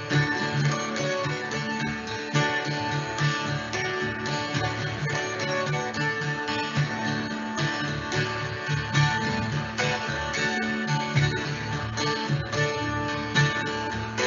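Instrumental background music led by plucked acoustic guitar, with a steady rhythmic bass line.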